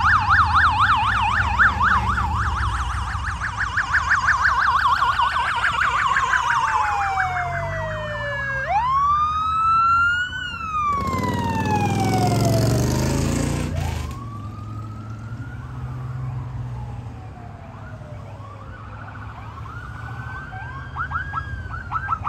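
Police sirens of a motorcade's escort passing: a fast yelp at first, then several wailing sirens gliding down and up, with a few seconds of harsher noise in the middle and short chirping yelps near the end. Police motorcycle and SUV engines run underneath.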